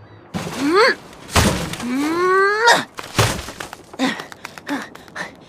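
A cartoon character's voice making two rising vocal cries, a short one and then a longer drawn-out one, followed by a single thud about three seconds in.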